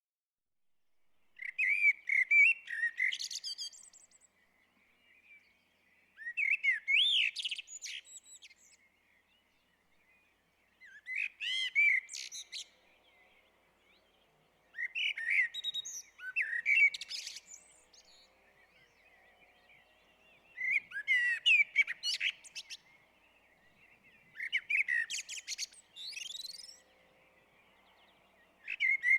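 Blackbird singing: about seven short phrases of whistled notes, each with a higher twittering part, separated by pauses of a couple of seconds.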